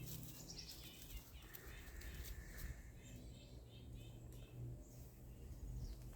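Faint bird chirps, a quick run of repeated notes about three seconds in, over a low steady rumble of outdoor background noise.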